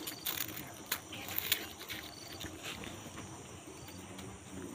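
Cats crunching and chewing a puffed corn-stick snack: a run of sharp crackling crunches over the first two seconds or so, then fainter chewing.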